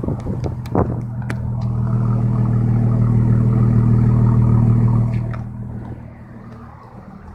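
2001 Ford Mustang's 3.8-litre V6 idling steadily with an even exhaust note, running smoothly now that it has settled below 1,000 rpm. The note swells louder from about a second in and fades again after about five seconds, with a few light knocks near the start.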